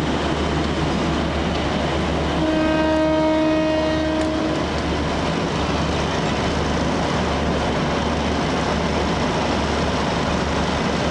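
Diesel railcar engine idling with a steady low rumble; about two seconds in, a two-tone horn sounds one blast of about two seconds.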